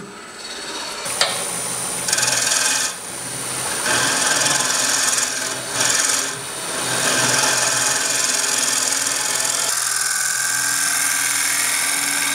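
Negative rake scraper cutting the inside of a spinning bowl on a wood lathe: a steady, rough scraping of shavings coming off the wood, over the low hum of the lathe. The cut eases off briefly about three seconds in and again a little after six seconds.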